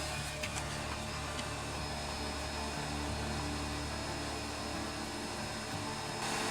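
Hot-air rework tool blowing a steady hiss of hot air onto a circuit board, preheating it to desolder and swap components. It gets louder near the end.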